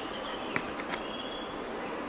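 Steady rush of river water over riffles, with a sharp click about half a second in and a high, thin bird call.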